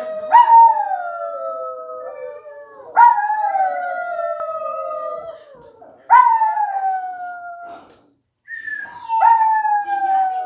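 Chihuahua howling: a run of long howls, a new one about every three seconds, each starting sharply high and sliding slowly down in pitch.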